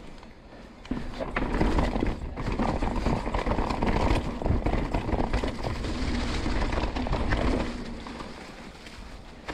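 Mountain bike rattling and knocking over rock slabs and rough trail, with a low rumble of wind on the microphone. It gets louder about a second in as the ride gets rougher, and eases off near the end.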